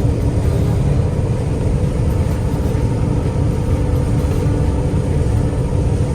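Combine harvester running steadily under load: an even low engine drone with a few constant hums above it.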